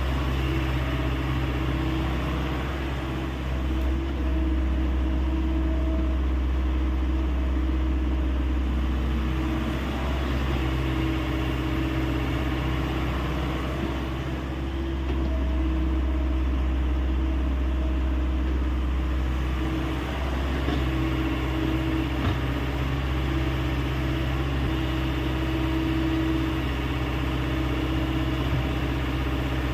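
Hyundai 85A excavator's diesel engine running steadily, its note shifting slightly a few times as the machine works.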